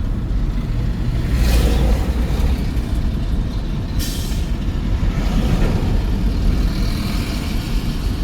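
Steady low rumble of road noise from a moving vehicle, with two short hisses about one and a half and four seconds in.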